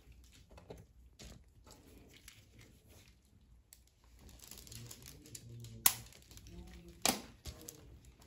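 Soft rustling and handling of gloved hands on exam-table paper, with two sharp clicks about six and seven seconds in. The louder first click is the spring-loaded finger-prick lancet firing for a blood test.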